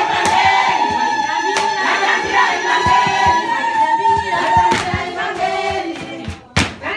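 A group of women singing together in chorus, with sharp percussive knocks now and then. Near the end the singing drops away and a few loud knocks stand out.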